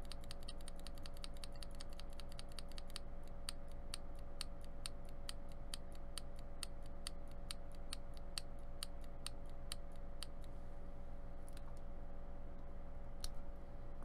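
KP Republic keycap on a mechanical switch, pressed repeatedly by hand and clicking. The presses come fast for the first three seconds, then settle to about three a second, and thin to a few single clicks near the end. A faint steady hum lies underneath.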